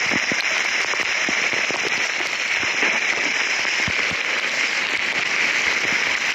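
Heavy rain pelting down on a flooded street: a dense, steady hiss thick with small drop impacts.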